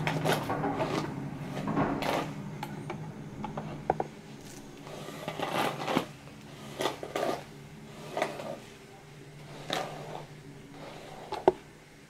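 A hairbrush being drawn through hair: a rough swish repeated about once a second, with a few sharp clicks in between and the loudest click near the end.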